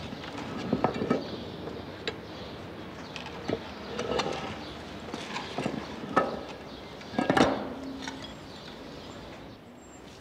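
Someone climbing down a manhole shaft into a sewer: irregular knocks and scrapes, about eight of them, the loudest about seven and a half seconds in.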